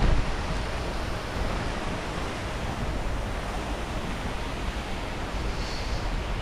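Steady outdoor noise: a low rumble with an even hiss over it and no distinct events.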